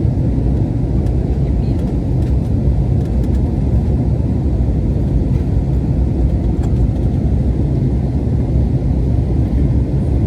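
Steady low rumble of jet engines and airflow heard inside an airliner cabin in flight.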